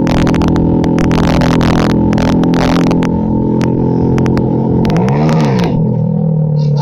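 Hero Splendor's single-cylinder four-stroke engine running loud through an Akrapovic full-system exhaust with the dB killer removed, a steady exhaust note with sharp crackling over the first three seconds. About five seconds in, the engine is blipped, revving up and dropping back within a second.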